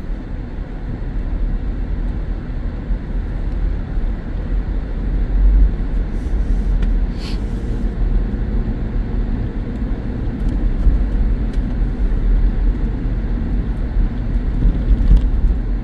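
Subaru all-wheel-drive car driving on a snow-covered road: a steady low rumble of engine and tyres.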